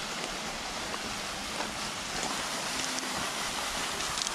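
Small waterfall: a steady rush of falling water.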